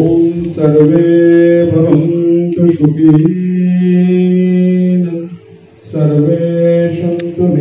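A man's voice chanting a recitation in long, held notes that step from one pitch to another, amplified through the hall's loudspeakers. It breaks off about five and a half seconds in and starts again half a second later.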